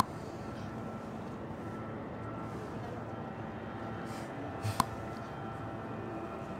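Steady open-air ambience with a faint murmur, broken by two sharp clicks, one at the very start and one nearly five seconds in.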